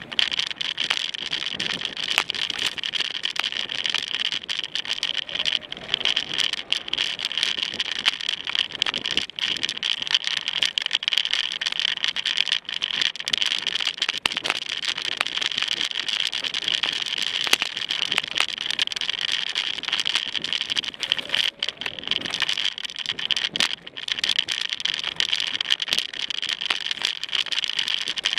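A mountain bike being ridden over a rough dirt trail, heard through a camera mounted on the bike or rider: constant rattling and many sharp knocks over a steady high hiss.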